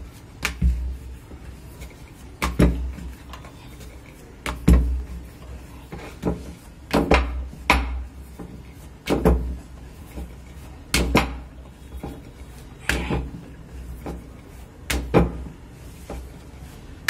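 Wooden rolling pin rolling out stiff wheat dough thin on a round wooden board (chakla), with a wooden knock and low thump about every two seconds as the pin and board shift on the counter.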